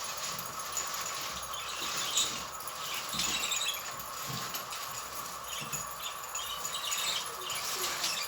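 Small songbirds chirping and twittering in short, irregular bursts, over a steady high hum.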